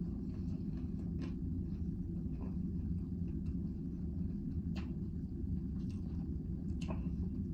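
Steady low rumble of a cruise ship cabin's background machinery, with a few faint clicks.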